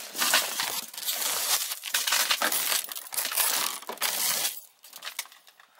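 Crumbled tempered safety glass from a smashed car rear window crunching and clinking as gloved hands sweep and push it out of the way, dying down about four and a half seconds in.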